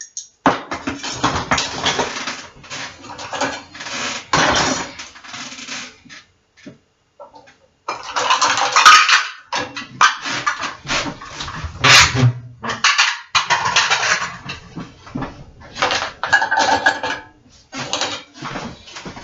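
Clean dishes, glasses and cutlery clattering and clinking as a dishwasher is unloaded and the items are set down and put away: a run of sharp knocks and clatters, a short lull about six seconds in, then a busier stretch with the loudest clatters near nine and twelve seconds in.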